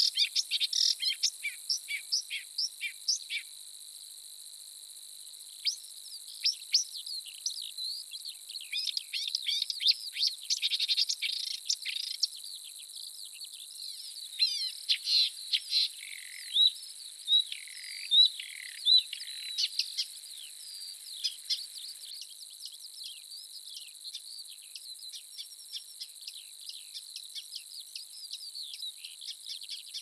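Small songbirds singing in quick, high chirps and trills over a steady, high-pitched insect drone. The song is busiest about nine to twenty seconds in and thins out for a couple of seconds near the start.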